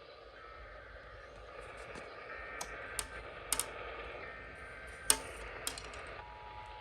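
Radio receiver hiss with a handful of sharp clicks and crackles, the loudest about five seconds in. Near the end, a steady two-tone sound of the Emergency Alert System attention signal begins faintly.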